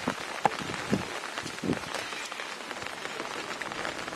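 Steady rain falling on a surface, with scattered drops ticking.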